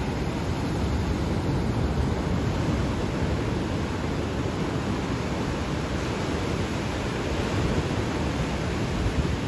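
Ocean surf breaking and washing over a rocky reef shelf: a steady rush of water with no single wave crash standing out.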